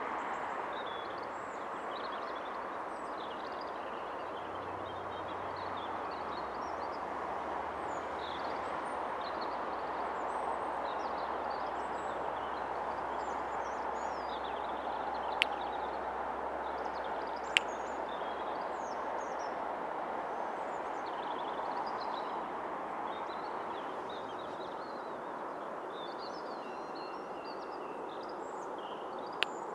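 Small birds chirping over the steady far-off rumble of an approaching diesel-hauled freight train. Four sharp clicks cut through: two about halfway through and two near the end.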